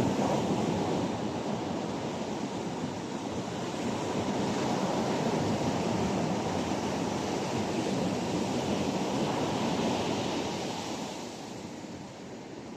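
Ocean surf breaking and washing on the shore, with wind buffeting the microphone; the wash eases off near the end.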